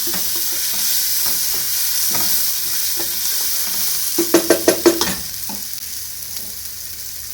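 Ginger and garlic frying in hot oil, a steady sizzle with stirring. About four seconds in comes a quick run of about six short ringing knocks, after which the sizzle is quieter.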